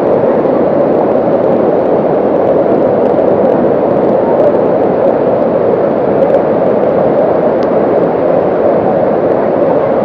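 A waterfall's loud, steady rush of water pouring over rocks, unbroken throughout.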